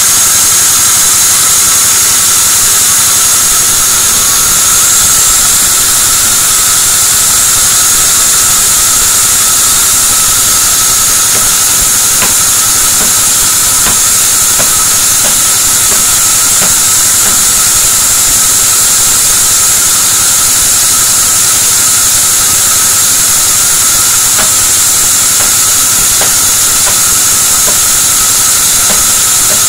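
Sawmill band saw running steadily, a loud hiss with a high whine over it. From about midway there are faint scattered knocks of a hatchet chopping at a sawn white-teak beam.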